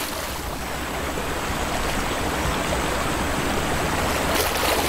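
River water churning and splashing as a Nile crocodile holds a wildebeest under to drown it, with a couple of sharper splashes near the end.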